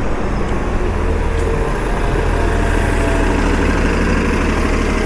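San Francisco Muni city bus running close by: a steady low engine rumble with a faint high whine over it.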